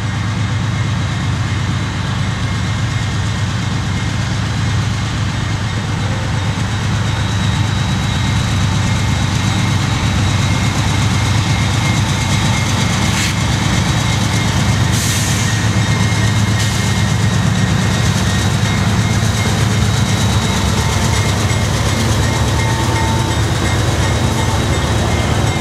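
GE diesel freight locomotives, CSX Dash 8-40CW units in the lead, approaching and passing with their engines running in a steady low drone that grows a little louder as they draw near.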